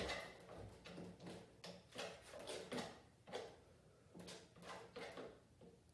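Faint, short strokes of a painting tool dabbing and dragging oil paint across a canvas, about two a second.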